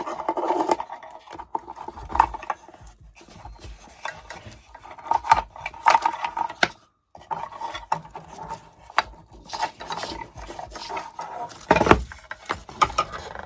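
Handling noise as a small light and its cord are worked into a wooden lantern: scattered clicks, taps and rubbing, with a louder knock about twelve seconds in.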